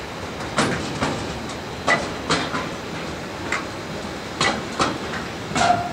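Freight train of container and tank-container flat wagons rolling past: a steady rumble with sharp wheel clacks, mostly in pairs, as the wheelsets pass over the track.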